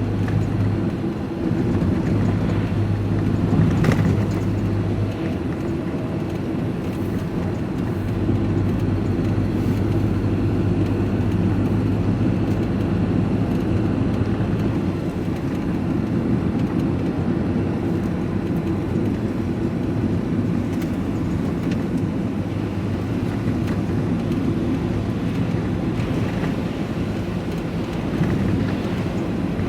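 Diesel vehicle driving at a steady pace, its engine and road noise making a continuous low drone, with a single knock about four seconds in.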